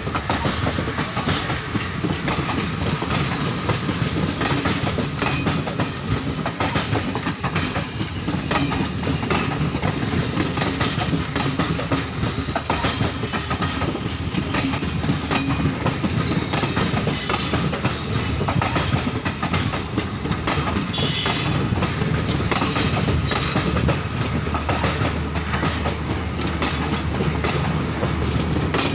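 Garib Rath AC sleeper coaches rolling past at close range, their wheels clattering over the rail joints in a steady clickety-clack.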